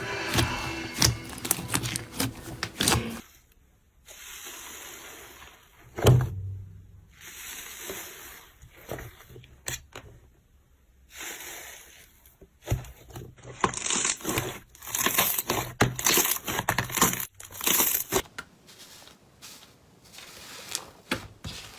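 Slime being squeezed, stretched and poked by hand, giving uneven bursts of crackling, crinkling and squelching with sharp pops, most dense a little past the middle.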